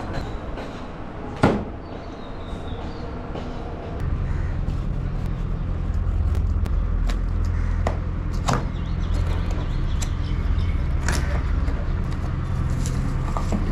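A sharp click, then about four seconds in a motor starts and runs with a steady low hum, with scattered small clicks and knocks over it.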